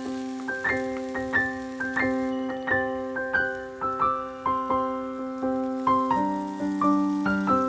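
Background music: a piano-style keyboard tune, single notes struck about twice a second over a held chord that changes about six seconds in.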